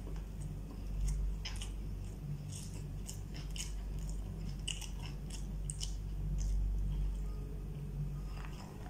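A person chewing food, with frequent small sharp mouth clicks and smacks. A steady low hum runs underneath.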